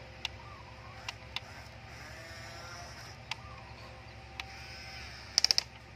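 Small electric motors of a Huina remote-control excavator whining as the boom and bucket move, the pitch rising and falling. Scattered single clicks, then a quick run of four sharp clicks near the end.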